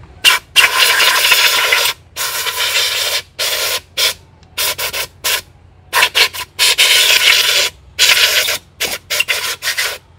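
About a dozen loud bursts of hissing, from a fraction of a second to nearly two seconds long, each starting and stopping sharply.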